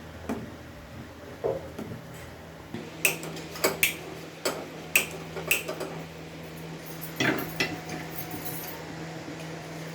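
Metal kitchen utensils and pans clinking and knocking against each other, about a dozen short ringing clinks scattered irregularly, over a steady low hum.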